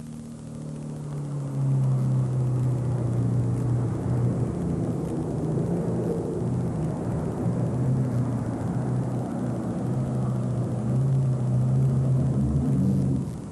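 Super stock pulling tractor's engine at full power under load while pulling the sled, building over the first couple of seconds to a steady loud drone, then dropping off sharply near the end as the pull finishes.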